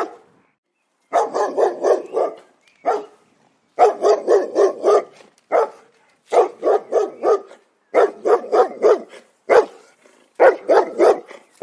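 A dog barking in quick runs of several barks at a time, with single barks between the runs.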